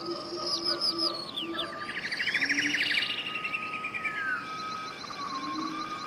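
Forest birdsong: several birds singing at once, with quick whistled notes and a fast trill in the middle, over low hooting calls.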